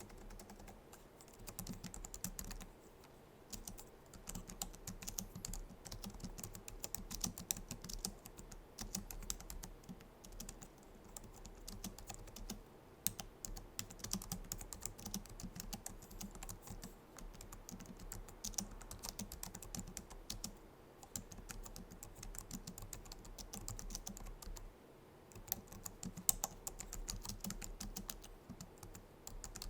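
Continuous typing on a Logitech MX Keys keyboard: rapid, soft key clicks in quick runs, with brief pauses a few times.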